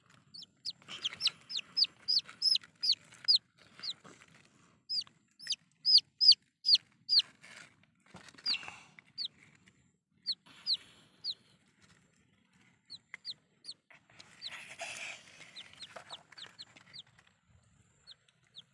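A bird chirping over and over in short, high notes that fall in pitch, coming in runs of two to three a second with short pauses. Between the chirps there is soft, wet noise from hands working in mud.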